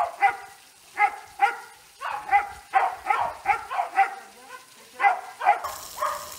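Dog barking repeatedly, about two to three barks a second, with short gaps. A hiss of sprinkler water spray comes in near the end.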